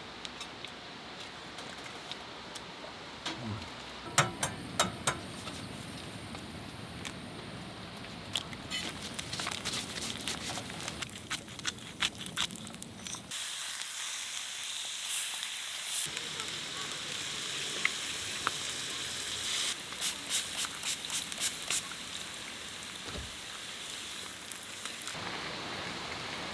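Food sizzling in a hot pan, with many sharp crackles and pops. The sizzle changes abruptly in tone and loudness several times.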